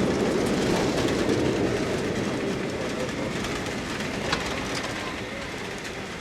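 Cabin noise of a Boeing 737-800 airliner rolling out on the runway just after touchdown: a steady rumble that fades gradually as the plane slows. A brief click sounds about four seconds in.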